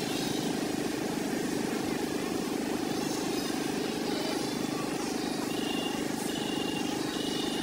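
Steady low outdoor background rumble, with a few faint high chirps in the second half.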